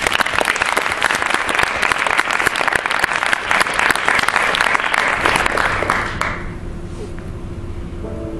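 Audience applauding, the dense clapping dying away about six seconds in.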